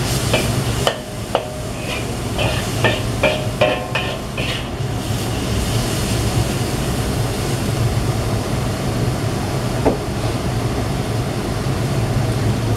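A metal spatula clinking and scraping against a wok as chicken and sliced onion are stir-fried, with a quick run of ringing clinks in the first few seconds. After that the stirring stops, leaving a steady sizzle of frying over a low, constant hum.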